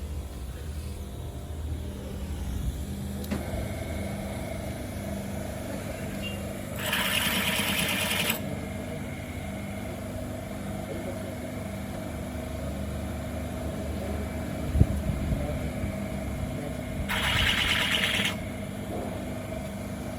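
Toyota Corolla engine running steadily. Twice, about seven and seventeen seconds in, a loud hiss lasts about a second and a half, and there is a single sharp knock about fifteen seconds in.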